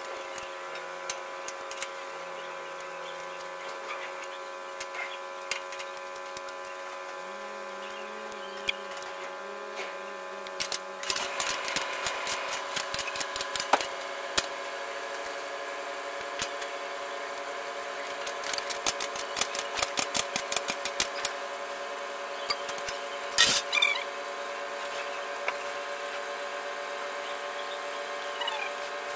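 Ratchet wrench clicking in quick runs, about a third of the way in and again about two-thirds in, as the bolts of the engine under-cover are undone, with a short metallic clatter after the second run. A steady machine hum runs underneath.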